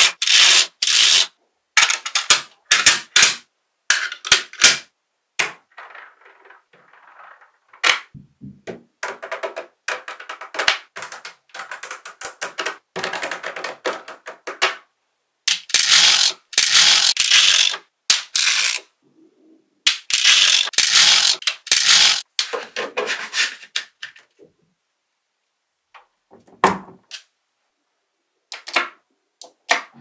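Small magnetic balls clicking and snapping together as they are set into place: sharp clicks, single and in quick runs, with two longer rattling runs of clacks about halfway through and a short quiet spell near the end.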